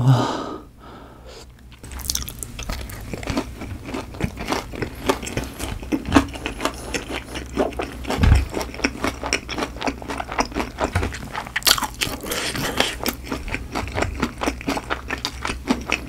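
Close-up crunching and chewing of crispy boneless fried chicken coated in seasoning powder: a dense run of crisp crackling bites starting about two seconds in.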